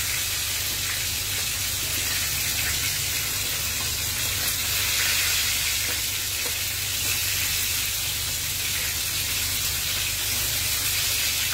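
Tilapia frying in hot oil in a pan: a steady sizzle, with a steady low hum underneath.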